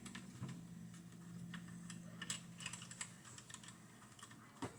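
Faint, irregular light clicks and taps of hard plastic toy parts from a 1986 G.I. Joe Tomahawk helicopter being handled and fitted together, with a sharper click near the end, over a faint low hum.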